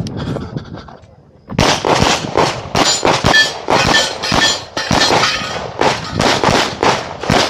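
A rapid string of 9mm pistol shots from a CZ Shadow 2 firing 147-grain ammunition, about three shots a second, each with a short echo. The shots start after a quieter first second and a half.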